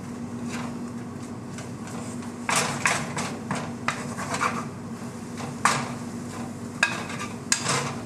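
Wooden spatula scraping and folding scrambled eggs in a frying pan: a run of quick scrapes a few seconds in, then single strokes near the end.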